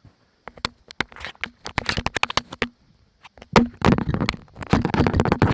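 Cockatoo knocking a hard plastic toy about: a quick, irregular run of sharp clicks and clatters, thickening into denser flurries about three and a half seconds in and again near the end.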